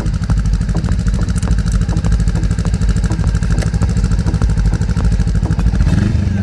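Motorcycle engine idling with a steady, even beat; about six seconds in the throttle is blipped and the engine note rises and falls.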